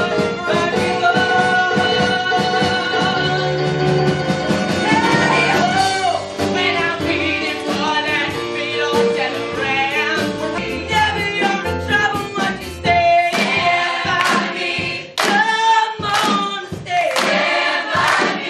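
A musical-theatre song sung live with accompaniment. Voices hold long notes at first, then move into a faster, punchier section with strong percussive accents in the second half.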